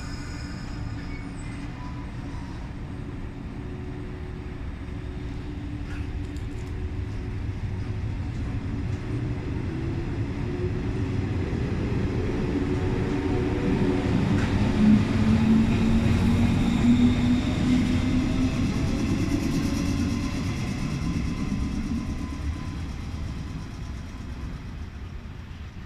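Yellow JR West 115-series electric train pulling away from the platform. Its traction motors whine upward in pitch as it gathers speed over a steady rumble of wheels on the rails. It is loudest as the cars pass about halfway through, then fades as the train draws away.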